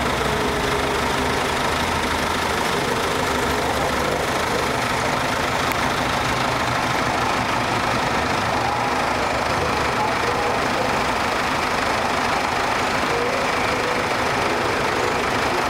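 Classic cars passing one after another, their engines running, over a steady background of idling engines.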